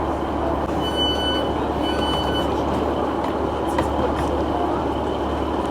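Steady low rumble of a moving vehicle, with two short high electronic beeps about a second apart, each lasting about half a second.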